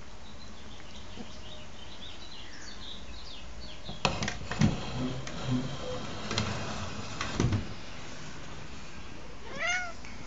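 A tabby cat gives one short meow near the end, rising then falling in pitch. Before it, a run of knocks and taps between about four and eight seconds in is the loudest sound.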